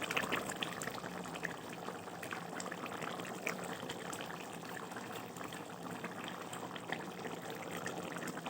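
Chicken curry simmering in a pot, a steady bubbling hiss with faint scattered ticks.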